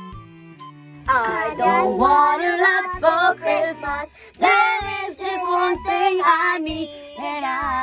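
A girl singing over backing music from about a second in. A short jingle tune plays before that.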